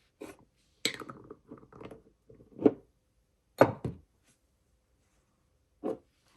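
Handling a fountain pen and ink bottle on a desk after filling: a string of irregular light knocks and clicks, the two loudest a little before and a little after three seconds in.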